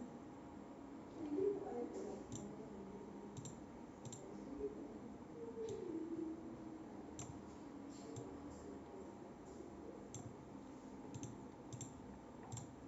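Computer mouse clicking, faint and irregular, with a couple of dozen scattered clicks, some coming in quick pairs.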